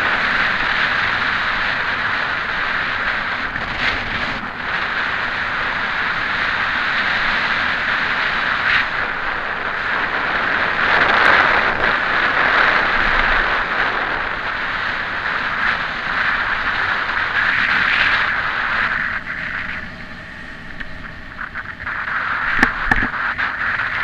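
Wind rushing over a Drift HD action camera's microphone as a mountain bike coasts fast down an asphalt road, with tyre hiss underneath. The rush eases for a few seconds near the end, and a few sharp clicks follow.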